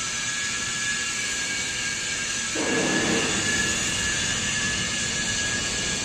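Hydraulic system of a scrap metal baler running: a steady whine with several high tones, joined suddenly about two and a half seconds in by a louder, lower rush that eases off over about a second.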